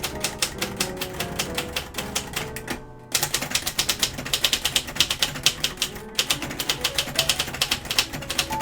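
Manual typewriter being typed on fast: a rapid, even run of key strikes, about seven a second, with a short pause about three seconds in.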